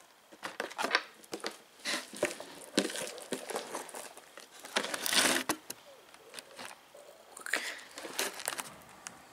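Homemade slime of liquid craft glue and liquid soap being squeezed and kneaded by hand in a plastic tray: irregular wet squelches and crackles, loudest a little past the middle.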